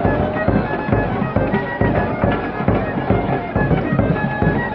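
Festival band music: wind instruments playing a melody over a steady drum beat.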